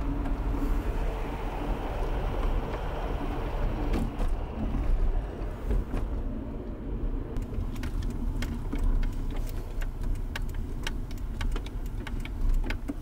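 Inside a moving car's cabin: a steady low rumble of engine and road noise. About eight seconds in, a run of quick clicks starts, several a second.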